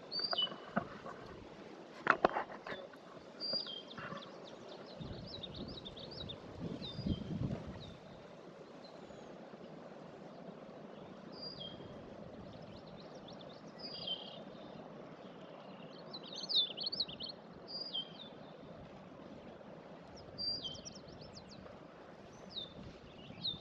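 Wild songbirds singing, with repeated short high chirps and notes that drop in pitch, over a faint steady outdoor background. A sharp knock comes about two seconds in, and a brief low rumble around seven seconds.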